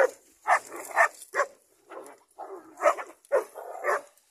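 Hunting dogs barking in quick succession, about two barks a second, as they bay and hold a caught wild boar.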